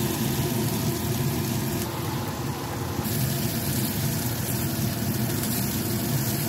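Diced bacon sizzling in a nonstick frying pan with an even hiss as a silicone spatula stirs it, over a steady low hum.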